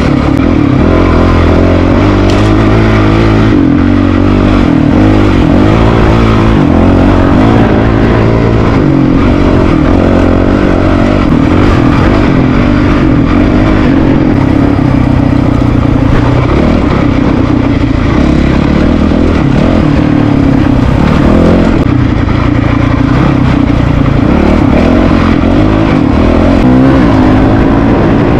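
Honda CRF450RL dual-sport bike's single-cylinder four-stroke engine running under way on a dirt trail, its pitch rising and falling with the throttle.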